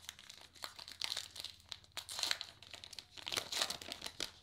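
The wrapper of a Topps Heritage Minor League baseball card pack being torn open and crinkled by hand, making irregular crackles and rustles.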